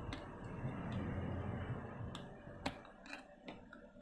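A metal pick prying the plastic bottom cover off a Photron P10 Bluetooth speaker: low rubbing and handling noise, then a few sharp plastic clicks as the cover works loose, the loudest a little past halfway.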